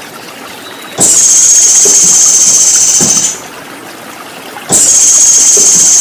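Two long, steady, high-pitched buzzing calls, each over two seconds long, the second starting about a second and a half after the first stops, over a steady wash of running water.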